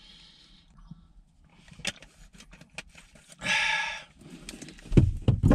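Man drinking from a plastic bottle: faint swallowing and small handling clicks, a short hissing burst about three and a half seconds in, then several knocks near the end as the bottle is set down.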